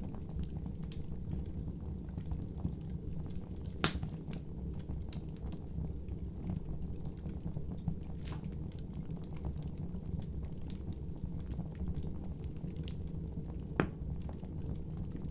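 Bonfire burning: a steady low rumble of flames with many small crackles, and two louder pops, about four seconds in and near the end.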